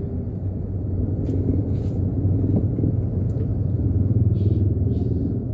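Toyota Wigo's engine and road noise while driving in slow traffic, a steady low drone, with the stock exhaust still fitted.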